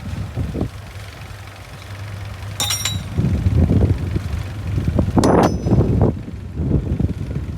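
Mitsubishi BD2F bulldozer's diesel engine running and swelling in pulses as it works, with a short metallic clink about three seconds in and a louder sharp metallic clank with a ringing squeal a little after five seconds.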